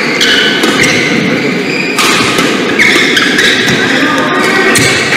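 Badminton rally: a few sharp racket hits on the shuttlecock, the first about two seconds in, with brief shoe squeaks on the court floor over a steady hall background.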